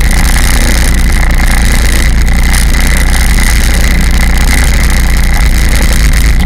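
Jet ski engine running steadily while under way, loud, with a constant high whine.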